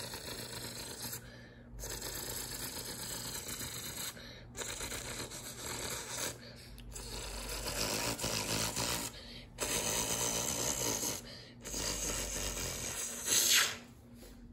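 A person imitating a tractor engine with the mouth: a rough, breathy engine drone in phrases of one to two seconds, broken by short pauses for breath, with a louder burst near the end.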